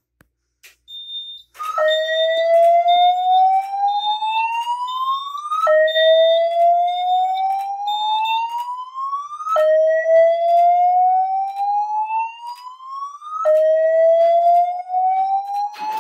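Voice-evacuation fire alarm speaker strobes sounding the EST-style slow whoop: a tone rising steadily over about four seconds, then dropping and starting again, about four times, the alarm tone that comes before the spoken evacuation message. Through the first half a fast high beeping from the alarm control panel runs alongside and stops about halfway through.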